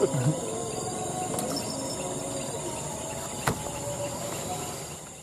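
Steady high-pitched chorus of evening insects, with one sharp click about three and a half seconds in.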